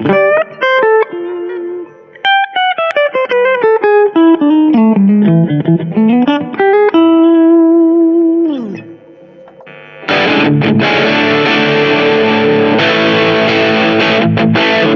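Grote semi-hollow electric guitar with P90 pickups, played through an amp. It plays single-note lead lines, including a fast descending run and a held note that slides down in pitch. From about ten seconds in it switches to heavily distorted chords.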